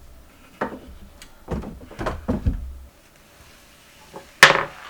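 Knocks and clunks of household items being handled and set down while a kitchen counter is cleared: a few around the middle, then one sharp bang near the end that is the loudest and rings briefly.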